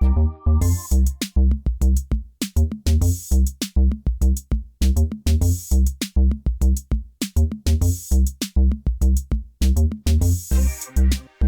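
Instrumental electronic beat with no vocals: a steady drum-machine pattern of heavy bass-drum hits and sharp snare and hi-hat strikes.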